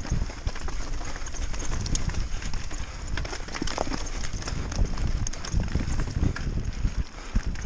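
Mountain bike descending a rough, rocky trail at speed: a constant irregular rattle and clatter of tyres, chain and frame over stones, over a heavy low rumble.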